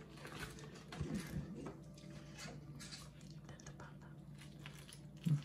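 Faint table sounds of hands and dishes: small scattered taps and clicks over a steady low hum, with a brief louder low sound near the end.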